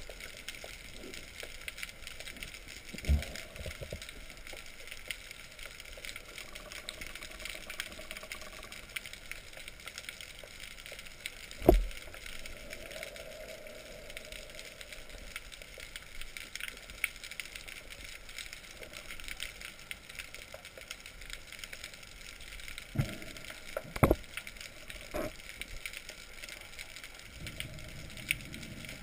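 Underwater ambience heard through a camera housing during a breath-hold wait: a steady faint crackling hiss, broken by a few dull knocks, the loudest about twelve seconds in and two close together near the end.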